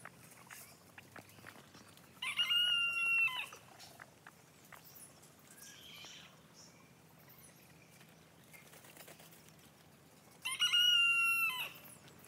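A rooster crows twice, about eight seconds apart, each crow lasting a little over a second. Between the crows, a hen's dust bath makes faint scratching in dry dirt.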